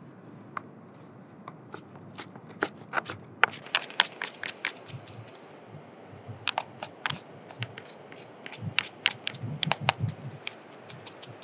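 Chef's knife mincing razor clam meat on a plastic cutting board: quick, irregular taps of the blade striking the board, coming thicker after the first couple of seconds.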